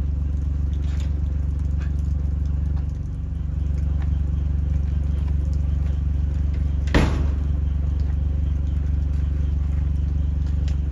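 Gator utility vehicle's engine idling steadily. A single sharp knock comes about seven seconds in, with a few faint clicks before it.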